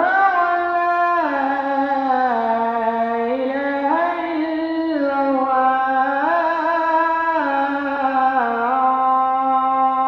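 Muezzin's call to prayer (adhan): one voice holding a long, drawn-out phrase whose pitch steps slowly up and down.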